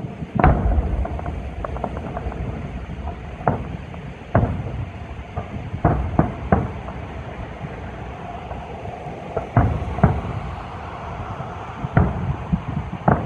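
Aerial firework shells bursting, a string of sharp booms spaced about a second to a few seconds apart, with a low rumble carrying on between them.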